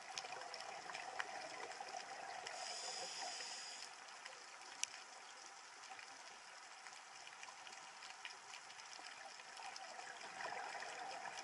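Faint underwater ambience: a steady watery hiss with a few scattered sharp clicks.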